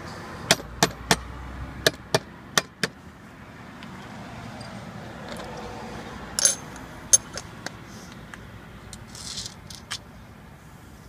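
Small metal parts clicking and clinking as they are handled and fitted on the top of an Elebia hook's clutch assembly: a quick run of sharp clicks over the first three seconds, then a louder cluster of clinks about six and a half seconds in and a few scattered clicks after.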